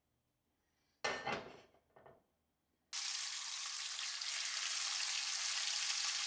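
Bacon strips sizzling in a hot frying pan on a gas burner: a steady hiss that starts about three seconds in, as the raw bacon goes into the pan, and runs on evenly. A short noise comes about a second in.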